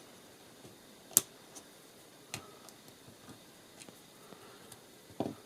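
A few small sharp clicks and taps from a radio wristwatch being handled as its battery cover is worked, the loudest about a second in and another a little after two seconds, with fainter ticks between and a short dull knock near the end.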